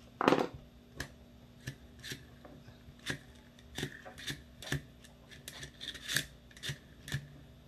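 Small, irregular clicks and ticks from a Ver3 airsoft gearbox being handled: the shell halves are pressed together and the gears worked to check them for play. A louder knock comes about a quarter second in.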